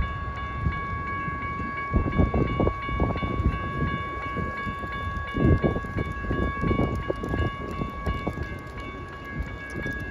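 Railroad grade-crossing warning bells ringing steadily and rapidly while the gates are down and the lights flash, with irregular low rumbling surges underneath, strongest about two seconds in and again a little past halfway.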